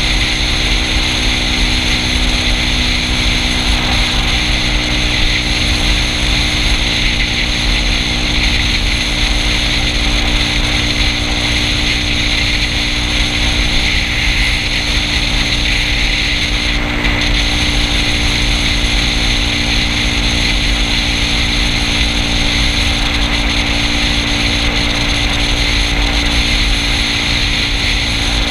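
Yamaha Cygnus 125 cc single-cylinder scooter engine droning at a steady cruising speed, mixed with steady wind rush, with no change in pitch.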